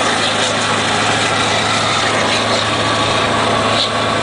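Scania R580's V8 diesel with a straight-piped exhaust running steadily at an even pitch, heard from inside the cab, with road noise underneath.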